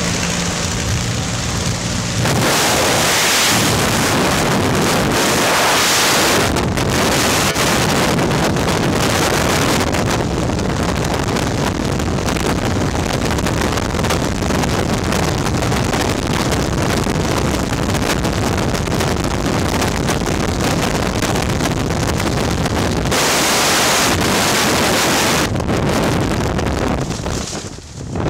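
Skydiving freefall: loud, steady wind rushing over the microphone. For the first couple of seconds a light aircraft's engine drones at the open door, and near the end the wind rush falls away as the parachute canopy opens.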